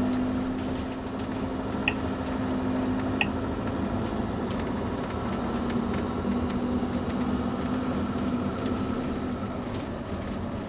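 Motorhome engine and road noise heard from inside the cab while driving slowly, a steady drone with a low hum.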